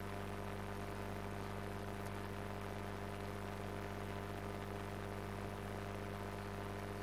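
Steady electrical mains hum with a low buzz, unchanging throughout.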